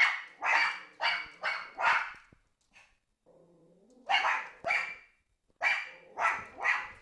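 Pomeranians barking in quick, sharp, high-pitched yaps: a run of about five, a pause, then two, then three more.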